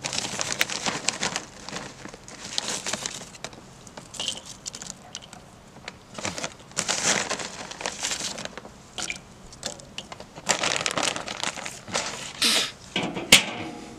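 Maple wood chips rustling and crinkling in their bag as they are scooped out and dropped onto the grill for smoke, in several rustling bursts, with one sharp click near the end.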